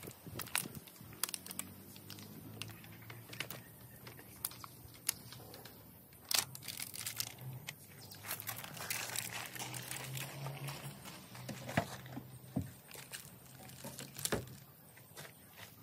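Hard plastic roof-rack crossbar mounting parts clicking and rattling as they are handled and fitted together, with plastic crinkling, in many short sharp clicks over a faint low hum.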